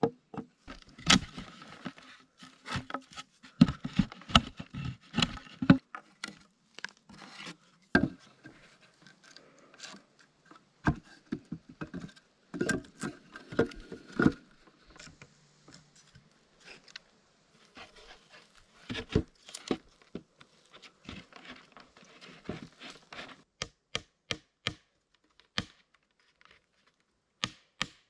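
Hand tools working wood: irregular sharp knocks and scraping. Near the end this gives way to a run of sharp strikes, about two a second.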